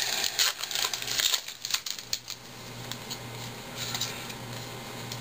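Baseball cards and foil card-pack wrappers being handled on a table: a quick run of crisp clicks and rustles for the first two seconds or so, then only faint handling.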